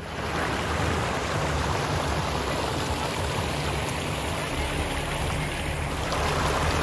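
Water from a small pump-fed waterfall pouring over a low stone weir into a pond, making a steady rushing, splashing noise.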